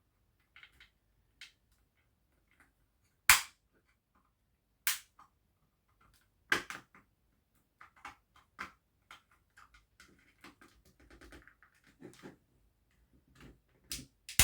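Sharp plastic snaps and clicks as the side grip panel of an Xbox One S controller is prised off with plastic pry tools, its clip tabs popping free. The loudest snap comes about three seconds in, with two more near five and six and a half seconds, then lighter clicks and scraping of plastic on plastic.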